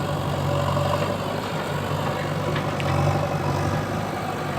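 Heavy diesel engine idling steadily, a low even hum that swells slightly about three seconds in.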